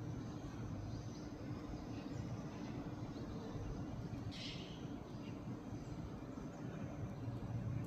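Oriental dollarbird giving one short call about halfway through, over a steady low background rumble.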